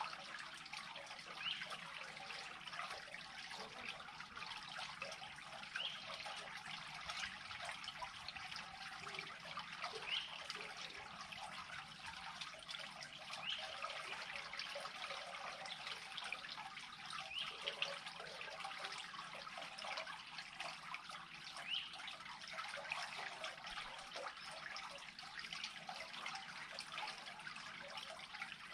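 Water trickling steadily as a pool drains into a culvert that has been cleared of a beaver blockage.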